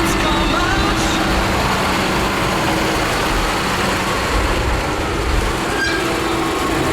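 Farm machinery engine running steadily with a constant low hum.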